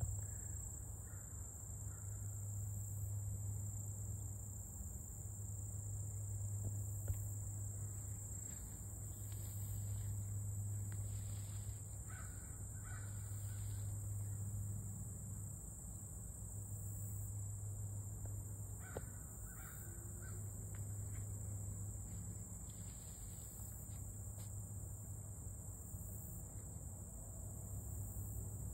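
Crows cawing a few times over a steady, high chirring chorus of field insects.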